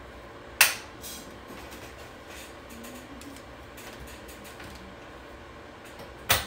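Two sharp knocks of tableware at a dinner table set for hot pot, the first about half a second in and the second near the end, over low, steady room noise.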